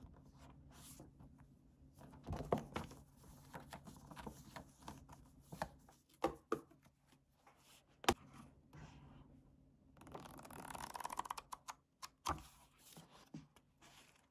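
Paper handling: a notebook's pages and its kraft-card sleeve sliding and rustling under the fingers, with scattered light taps and clicks. The sharpest tap comes about eight seconds in, and a longer rustle runs for about two seconds from about ten seconds in.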